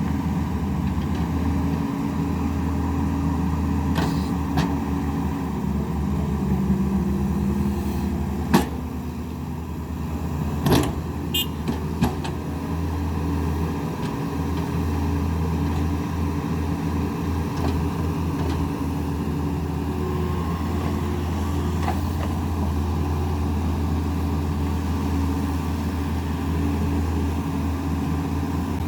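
Excavator diesel engine running steadily, with a few sharp knocks or clanks; the loudest comes about eight and a half seconds in.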